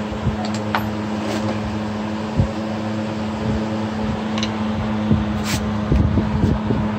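A few light metallic clicks of a wrench and socket working on the scooter's ignition coil mounting bolts, over a steady mechanical hum; close handling rustle comes in near the end.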